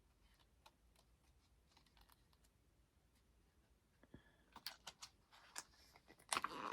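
Near silence with a few faint clicks, then a busier run of light clicks and rustles from photo cards being handled and shuffled over the last couple of seconds.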